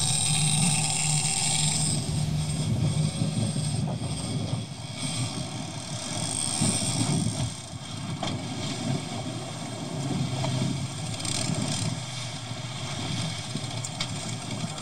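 Twin Yamaha 115 outboard motors running with the boat underway, with a steady low hum under the rush of water and wash. A thin high whine sits over it for the first couple of seconds.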